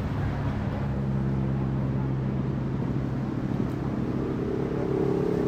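An engine running steadily, with a higher, louder engine note building up near the end.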